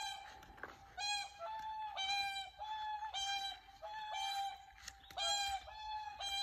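A group of whooper swans trumpeting loudly and repeatedly, about two bugling honks a second, several birds calling over one another.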